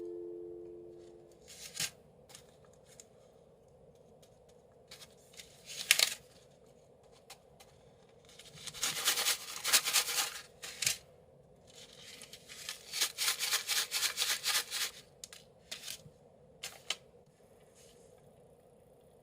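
A plastic candy packet being handled and torn open: short crinkling rustles and clicks in scattered bursts, thickest about halfway through and again a few seconds later.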